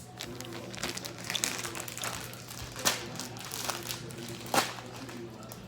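Plastic packaging being handled and crinkling in irregular crackles, with two louder crackles about three and four and a half seconds in.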